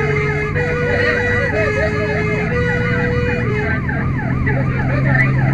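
Fire engine sirens yelping, their pitch sweeping up and down rapidly about three times a second, over steady lower tones.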